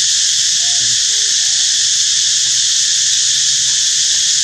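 Loud, steady insect chorus, a high dense buzzing that fills the air without a break. A few faint short calls rise and fall under it in the first two seconds.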